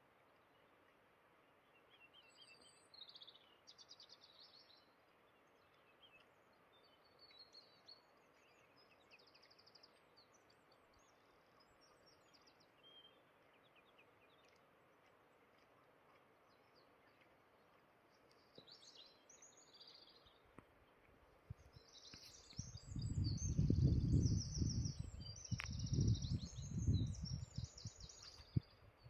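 Faint birdsong: short high chirps and trills at intervals over a quiet background hiss. Late on, a few seconds of loud low rumbling noise.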